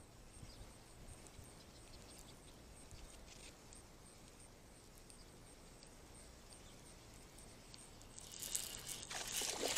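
Faint handling of a spinning rod and reel, with light ticks and quiet outdoor background. About eight seconds in, a louder crackling stretch of rustling and splashing begins at the water's edge.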